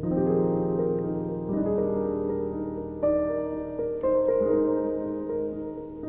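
Background piano music: a slow melody of single notes and chords, each left to ring on.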